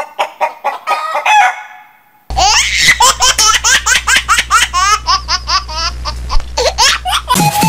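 A chicken clucking in quick pulses for about the first two seconds. After a short gap, a long run of rapid laughter follows, each laugh gliding up in pitch over a low hum, and it stops just before the end.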